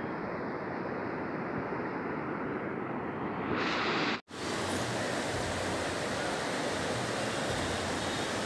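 Steady rushing noise with no distinct events. About four seconds in it swells briefly, cuts out for an instant, and comes back brighter and hissier.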